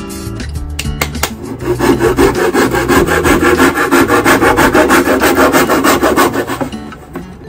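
Handsaw cutting a thin wooden board in quick, rhythmic back-and-forth strokes. The strokes start about a second and a half in and stop near the end.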